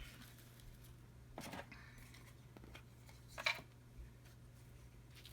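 Quiet room with a steady low hum, broken by two brief, faint handling sounds from paper-crafting work, about a second and a half and three and a half seconds in.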